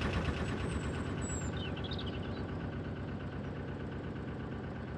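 Narrowboat's diesel engine running with a steady, rhythmic chug that fades slightly.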